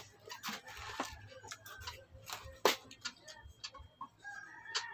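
Close-up eating sounds: irregular wet mouth clicks and lip smacks as someone chews, one sharp click about two and a half seconds in the loudest.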